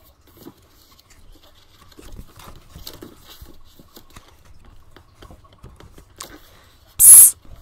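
Faint rustling and soft taps of a paperback picture book's pages being handled and turned. Near the end comes one short, loud "psst!" hiss from a person.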